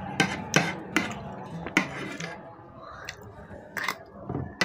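Metal spoon clinking and scraping against a ceramic plate as noodles are scooped up, with chewing between strokes. Several sharp clinks come in the first two seconds and another near the end.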